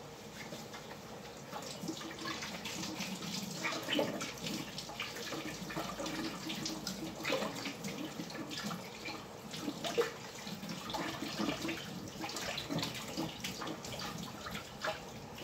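Kitchen tap running into the sink as hands are washed with soap under it, with small irregular splashes of water.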